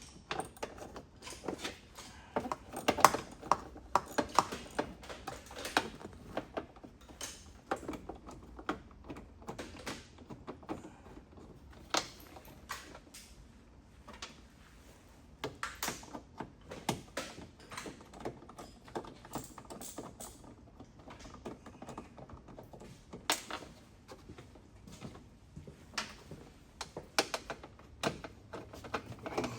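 Irregular clicks, taps and knocks of hand tools and small metal parts being handled, with a few louder knocks scattered through.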